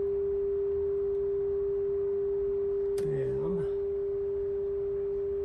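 A steady, pure test tone from the Kenwood KR-9600 receiver, playing the audio modulation of an FM signal generator's test signal at 88 MHz; the station is tuned in and received in stereo. A brief vocal sound comes about three seconds in.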